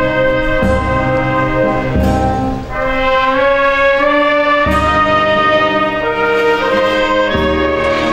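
Wind band of brass, clarinets and bass drum playing a slow march in long held chords that change every second or two.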